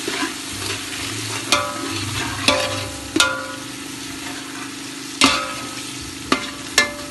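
Onion, tomato and spice masala frying in oil in a large metal pot, sizzling steadily as it is stirred and scraped with a metal spatula, with several sharp clinks of the spatula against the pot that ring briefly. It is the bhuna stage, the masala being browned in the oil.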